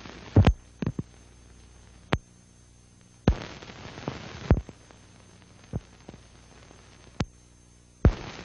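Blank stretch of an old film soundtrack: a steady low hum with about a dozen scattered sharp pops and clicks, and two short bursts of hiss, one in the middle and one near the end.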